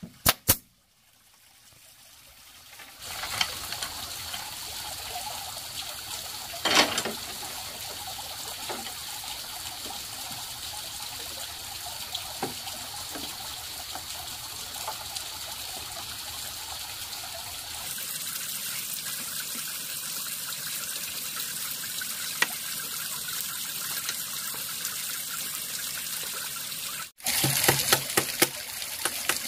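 A pneumatic nail gun fires twice into bamboo slats. A steady rushing hiss follows, and near the end the nail gun fires a quick series of sharp shots.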